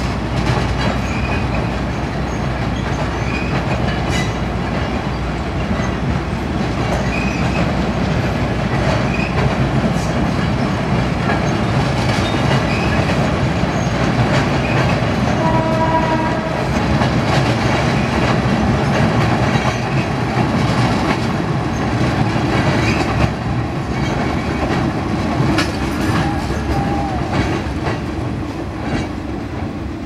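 Passenger coaches rolling over a timber trestle railway viaduct, a continuous rumble with clickety-clack of wheels over rail joints. A short steady tone sounds about halfway through, and the noise eases off near the end as the last coaches move away.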